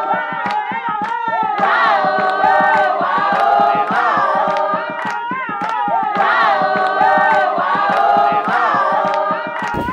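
A group of voices singing a song together in harmony, with a steady beat of sharp claps.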